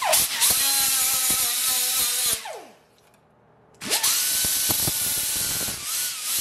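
Small right-angle grinder with a sanding disc dressing the cut edge of an 18-gauge steel repair patch. It spins up and runs for about two and a half seconds, winds down, pauses for about a second, then starts again and keeps running.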